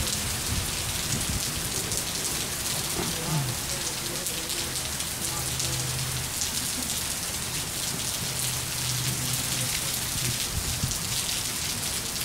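Heavy thunderstorm rain pouring steadily onto wet pavement, a dense, unbroken hiss of countless drops splashing.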